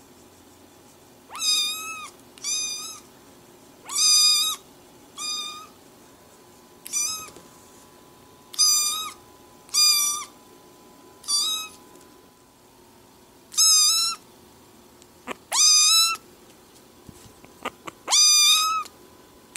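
Young kitten meowing over and over: about eleven short, high-pitched meows, each about half a second long, one every second or two.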